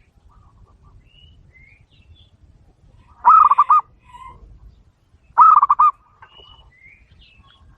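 Zebra dove (perkutut) cooing: two short bursts of quick, rolling notes about two seconds apart, with faint chirps of small birds in between.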